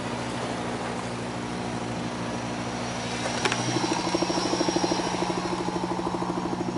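Loudspeaker driven by an online tone generator at a very low, infrasonic frequency, giving a steady low hum. About three and a half seconds in, a rapid even fluttering of roughly ten pulses a second joins in, heard as 'only the wind'.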